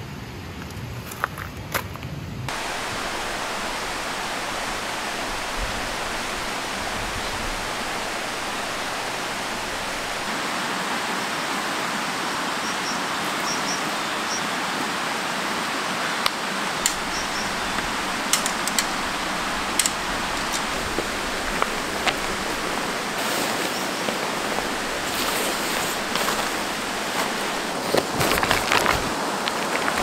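Mountain stream rushing steadily, coming in about two seconds in. Scattered rustles and crinkles of tent fabric and groundsheet being folded, more of them near the end.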